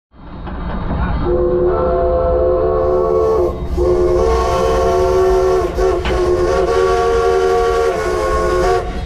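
Steam locomotive's multi-chime whistle blown in two long blasts, a short one and then a much longer one, over the steady low rumble of the running engine heard from inside the cab.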